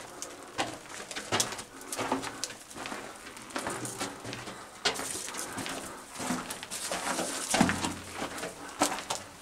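Footsteps crunching on the rocky, gravelly floor of a mine tunnel, echoing off the rock walls, with low cooing sounds among them.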